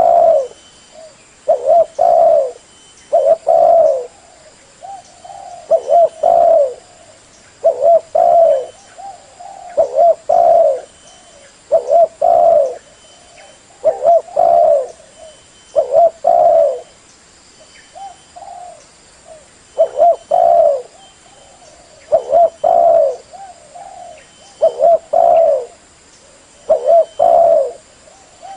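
Spotted dove (tekukur) cooing: the same short phrase of low coos repeats over and over, roughly every two seconds.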